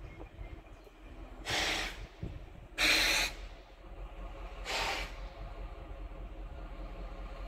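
Three short hisses of compressed air from a freight train's air brakes, each about half a second long, the middle one loudest, over a low rumble.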